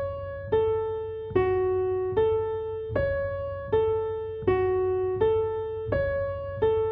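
Solo piano music: a slow, even line of single notes, one struck about every three-quarters of a second, each ringing and fading before the next.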